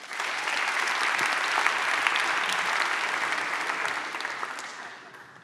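Audience applauding in a large hall, starting abruptly, holding steady for about four seconds and then dying away.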